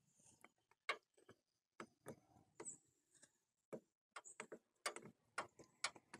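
Faint, irregular clicks and light taps as the tip of a plastic-welding iron is worked against a plastic radiator tank and the tank is handled.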